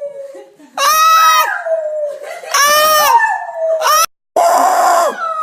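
A pet dog howling in long drawn-out notes, trading calls with a person's loud, shrill screams. Several loud cries come in quick succession. The sound cuts out abruptly for a moment about four seconds in, then a howl slides down in pitch.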